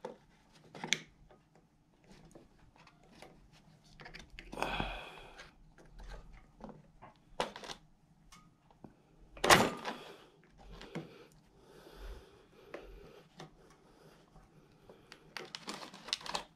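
Scattered light metallic clicks and scrapes of a screwdriver working at the throttle and governor spring linkage on a lawnmower carburettor, with one sharper knock a little past halfway.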